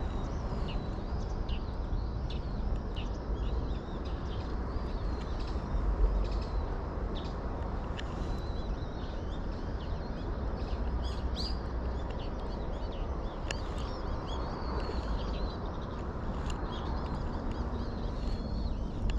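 Small birds calling and chirping, many short high calls in quick succession, over a steady low rumble of outdoor background noise.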